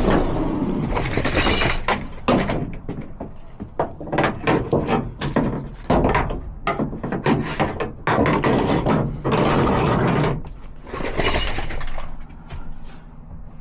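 Tools clattering and knocking as they are rummaged through and gathered, with repeated sharp clicks and short rattling bursts.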